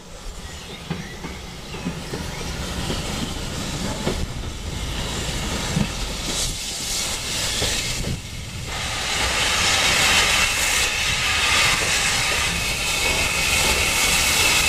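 Drummond M7 0-4-4T steam tank engine No. 53 drawing its carriages into the station: hissing steam and rolling wheels with a few clicks over the rail joints, growing louder as it nears. The steam hiss gets much louder about two-thirds of the way in.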